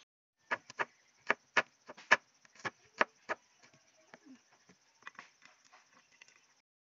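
Kitchen knife chopping garlic cloves on a plastic cutting board: a run of sharp, uneven taps, the loudest in the first few seconds, then lighter taps.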